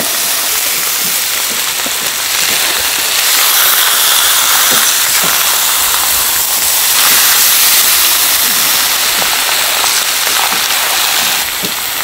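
Pork offal sizzling on a large hot iron griddle, a steady dense hiss with scattered small clicks.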